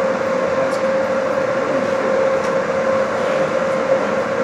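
Steady machine hum of an indoor ice rink, with a constant drone tone running through it, faint distant voices and an occasional light click.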